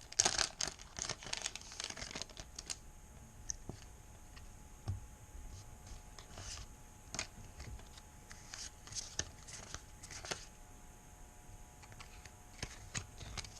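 Foil Pokémon booster pack wrapper crinkling and being torn open, dense for the first few seconds, then sparse faint rustles and clicks of the cards being handled.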